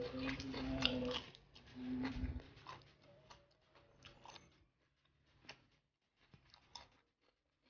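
A man chewing a mouthful of honey-grilled chicken and rice, with wet mouth clicks and smacks, and a low hummed "mm" twice in the first two seconds. The chewing sounds thin out and fade near the end.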